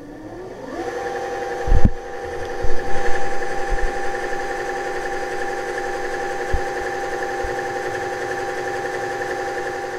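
Sewing machine motor driving the bobbin winder, winding thread onto a bobbin: a steady whine that rises in pitch as it speeds up over the first second, then holds. A sharp knock about two seconds in, with a few lighter bumps around three seconds.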